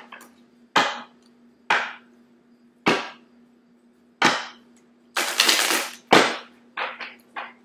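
A deck of tarot cards being shuffled by hand: sharp snaps and slaps of the cards about once a second, a longer rush of cards falling together about five seconds in, and three quick snaps near the end.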